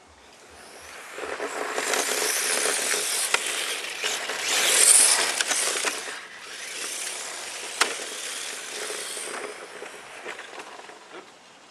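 HPI Sprint 2 RC drift car with a brushless motor skimming across asphalt, its motor whine and drift tyres hissing on the tarmac. It builds up to a close pass, loudest about five seconds in, then makes a second, quieter run that fades away, with a couple of sharp clicks along the way.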